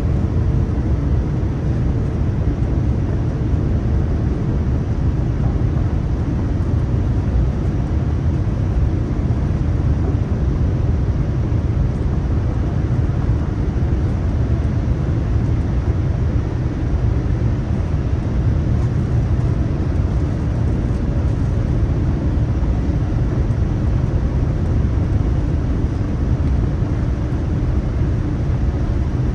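Steady low rumble of a Boeing 787-9 airliner in flight, heard from on board: engine and airflow noise, even throughout with no changes.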